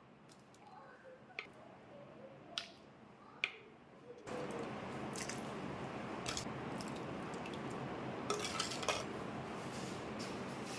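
A steel ladle clinking a few times against clay pots while thick chicken curry is ladled into a clay serving bowl, with soft squelching and dripping of the curry. About four seconds in, a steady background hiss comes in and stays.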